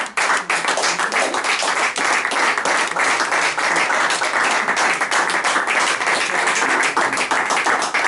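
A small audience applauding: many hands clapping at once in a dense, steady mass of claps.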